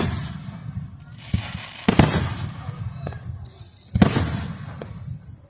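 Aerial fireworks shells bursting: a sharp boom right at the start, a smaller pop a little past one second in, and loud booms at about two and four seconds in, each fading away with a rumbling echo.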